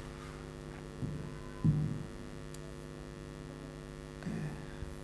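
Steady electrical mains hum with several evenly spaced tones, with a few brief soft low sounds about a second and a half in and again near the end.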